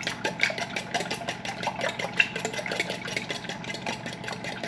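Eggs being beaten by hand in a stainless steel mixing bowl: the utensil clicks against the metal bowl in a fast, even rhythm of strokes.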